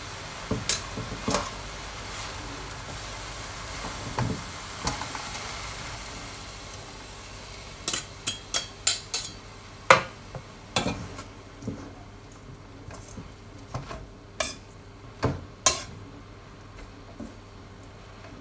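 Shredded cabbage, carrot and glass noodles being stir-fried in a wok: a sizzle that fades about halfway through, and a spatula knocking and scraping against the wok. The knocks come in a quick run near the middle and are scattered after it.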